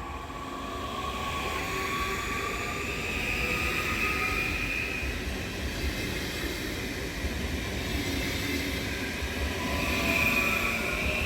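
A train running past on the track: a steady rumble with high whining tones over it, swelling in the first few seconds and staying loud.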